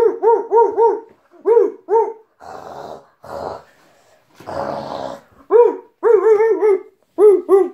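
Dog barking in quick runs of short, high yaps, about five a second. Two rough, noisy growl-like stretches come between the runs, around three and five seconds in.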